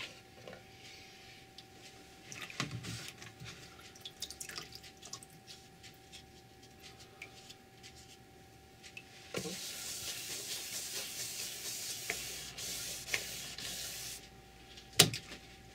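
Hand-sanding an oil-painted wooden speaker box: light scattered taps at first, then a steady, high, scratchy rubbing for about five seconds from roughly nine seconds in. A single sharp knock comes near the end.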